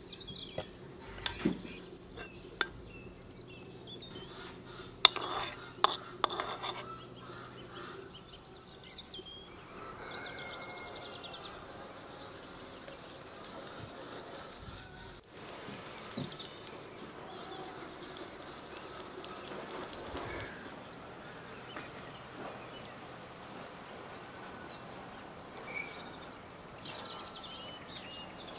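Birds chirping in a garden, with a few sharp clinks of a metal spoon against bowls in the first several seconds as butter is scraped into an enamel basin, then soft rustling of flour being sifted and rubbed together by hand.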